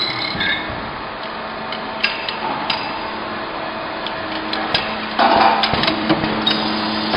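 CNC lock-body combination machining machine running: a steady mechanical noise with a low hum, broken by sharp metallic clicks and knocks, a few scattered early and a cluster after about five seconds.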